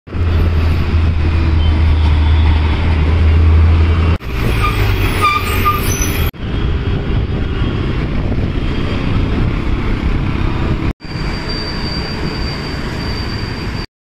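City traffic and road noise recorded from a moving scooter, with a strong low engine drone in the first four seconds while close behind a bus. The sound changes abruptly about four, six and eleven seconds in, and a faint high whine runs through the last few seconds before it cuts off.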